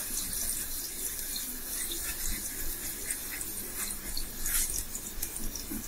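A steady faint hiss, with a few faint scrapes as a knife is run around the inside edge of an aluminium pan to loosen steamed dhokla from the sides.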